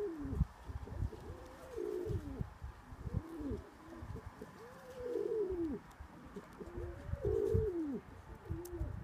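Male domestic pigeon cooing in display, neck feathers puffed: a series of five or six rolling coos, each rising and falling, about a second and a half apart.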